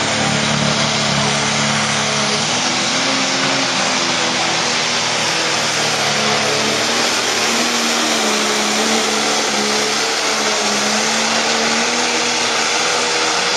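A pro stock pulling tractor's turbocharged diesel engine running at full power under load as it drags the pulling sled down the track. It gives a steady, loud engine note over a rush of noise.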